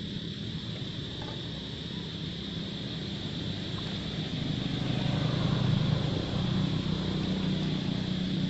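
A low, steady engine-like drone that grows louder about four seconds in, over a steady high-pitched hum.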